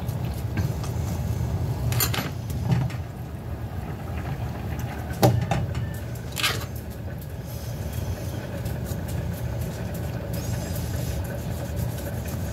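Kitchen knife cutting through a tomato and tapping the plastic cutting board a handful of times, the loudest tap about five seconds in, over a steady low hum.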